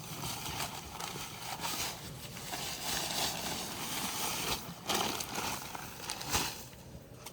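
Dry bagged concrete mix being poured into a fence-post hole: an uneven gritty rush with a couple of knocks, dying away near the end.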